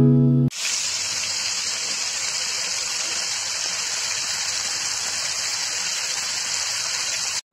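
Chicken kebab skewers sizzling as they fry in oil in a pan: a steady hiss that cuts off suddenly near the end. The intro music ends about half a second in.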